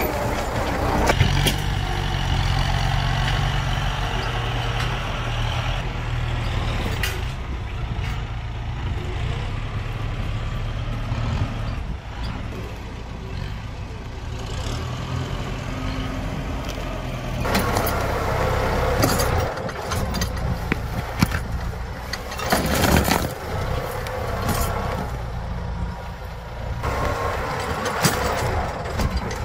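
Diesel farm tractor engine running steadily under load, with scattered sharp cracks and knocks.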